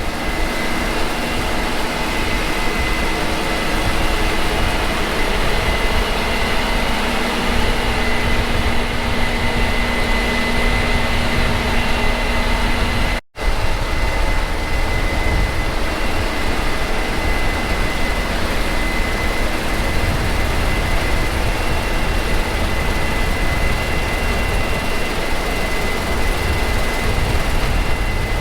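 Combine harvester running in the field: steady heavy engine and machinery noise with a constant high whine over a lower hum. The sound drops out for an instant about halfway through.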